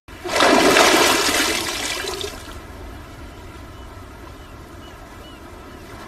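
A person plunging into the sea: a loud splash and rush of water that fades over about two seconds, then a low steady wash of sea water.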